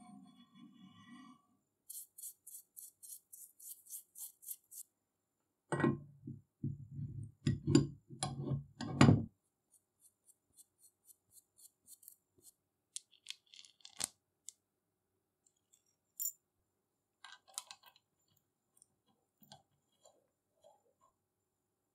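Metal parts of an arbor press being handled and fitted: a steel shaft sliding and ringing in the cast-iron body at the start, then a quick run of light strokes. A burst of heavy knocks comes between about six and nine seconds and is the loudest part, and scattered light metal clicks follow.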